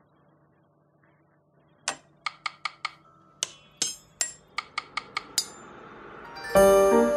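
About a dozen sharp, ringing ticks at uneven spacing, followed by piano music that comes in loudly near the end.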